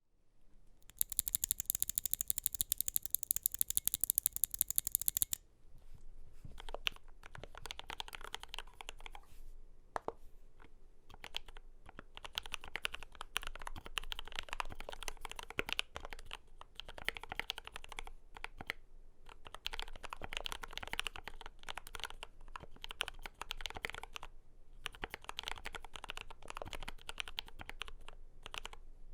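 Typing on a Glorious GMMK Pro custom mechanical keyboard with lubed JWK Lavender linear switches and Cherry-profile PBT keycaps, in runs of fast keystrokes with short pauses. About a second in, a louder, bright, rapid clatter runs for about four seconds before the steadier typing starts.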